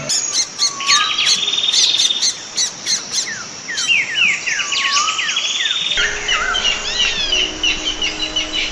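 Wild birds calling: quick, repeated falling chirps with a long buzzy trill heard twice. About six seconds in, the background changes abruptly to a different bird recording with rapid chirping calls.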